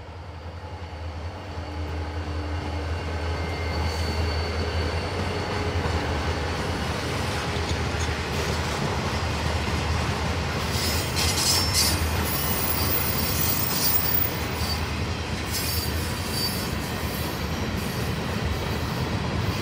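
CSX freight train passing close by: a steady rumble of steel wheels rolling over the rails as the boxcars go past. Brief high wheel squeals come about halfway through and again a few seconds later.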